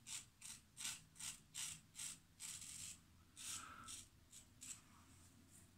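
GEM 1912 single-edge safety razor scraping stubble through lather in short, quick strokes, about two to three a second: a faint, scratchy rasp, noisy like a lawnmower.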